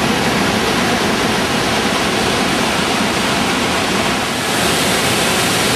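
Massive waterfall of the Iguaçu Falls pouring, a loud, steady rush of falling water that grows a little louder and brighter about four and a half seconds in.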